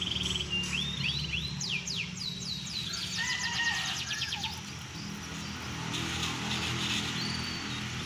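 Caged canaries singing: quick rising and falling sweeps and fast trills of repeated high notes, busiest in the first half, over a low steady hum.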